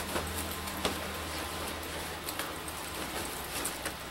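Long leather-look coat being swung on over the shoulders and pulled into place: irregular rustling and small clicks, over a steady low hum.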